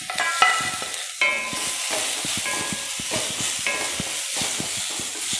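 A tempering of onions, garlic, chillies and freshly added curry leaves sizzling in hot coconut oil in a metal pan. A wooden spatula stirs it, scraping and knocking on the pan, with a few short ringing clinks.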